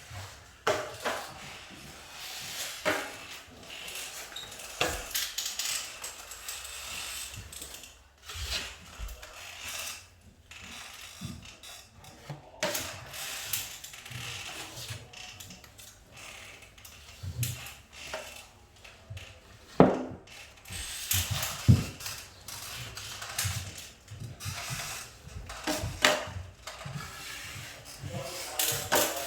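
Scattered scraping, clicks and knocks of hand tools being handled, with two sharper knocks about two-thirds of the way through.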